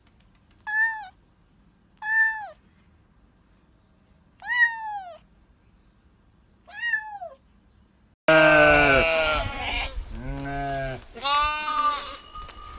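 Four short, high kitten-like meows, each rising then falling, about two seconds apart. Then an abrupt cut about eight seconds in to louder, lower bleating of livestock with background noise.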